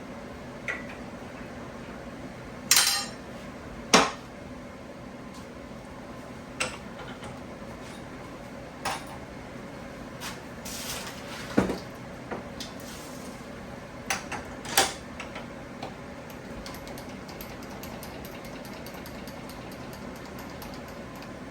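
1943 South Bend lathe running with a steady hum, broken by irregular sharp metallic clinks and knocks, the loudest about three and four seconds in. Near the end a fast train of faint ticks sets in.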